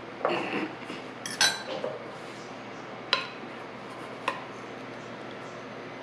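Metal spoon scraping and clinking against mixing bowls: a few scrapes in the first second, then single sharp clinks about a second and a half, three seconds and four seconds in.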